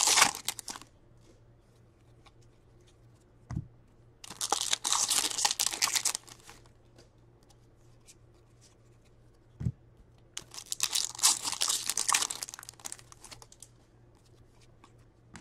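Hockey-card pack wrappers being torn open and crinkled, in two bursts of about two seconds each, about four seconds in and again about ten seconds in, each preceded by a short knock.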